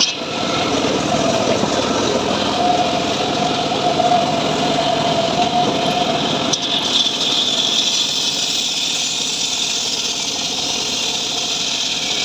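Engine of a homemade portable band sawmill (gergaji srekel) running steadily. About seven seconds in the sound changes, its hum giving way to a stronger high hiss.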